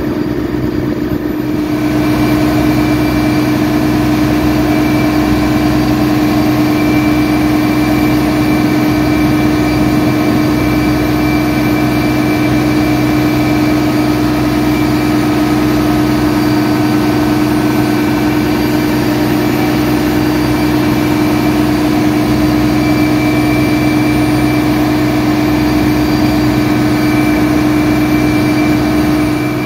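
Boat engine running steadily, heard from on board as a constant loud hum that stays unchanged throughout.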